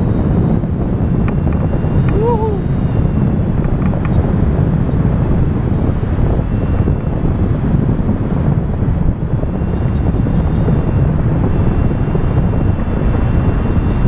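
Loud, steady wind rush buffeting the microphone of a camera mounted on a hang glider in flight.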